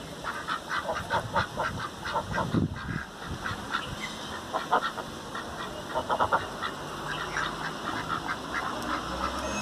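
White domestic ducks quacking in several quick runs of short calls.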